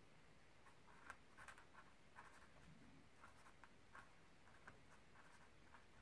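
A pen writing by hand on paper: faint, irregular scratching strokes.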